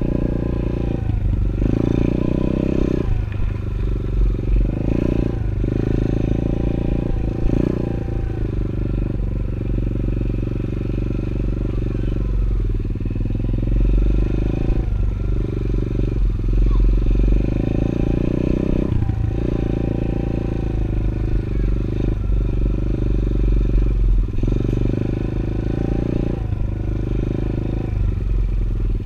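A 110cc pit bike's single-cylinder four-stroke engine being ridden. The throttle is opened and closed every few seconds, so the revs rise and drop over and over.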